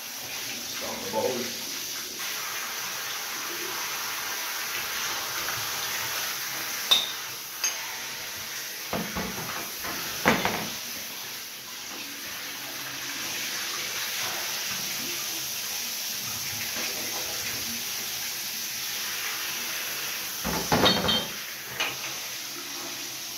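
Water spraying steadily from a handheld shower head into a bathtub while glass beer bottles are rinsed, with the bottles knocking and clinking against each other a few times, sharpest about seven, ten and twenty-one seconds in.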